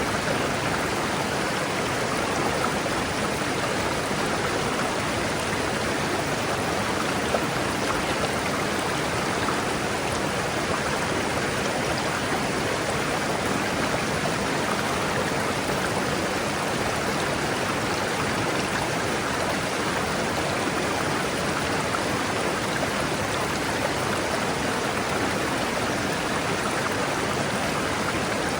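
River water rushing steadily over rocks: an even, unbroken rushing.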